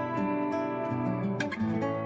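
Background music: acoustic guitar, plucked and strummed notes.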